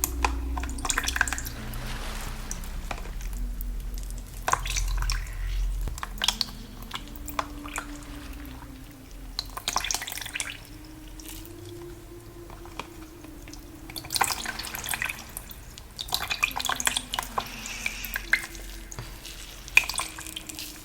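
Water dripping and splashing in scattered clusters, layered over a woman's soft humming of a slow melody.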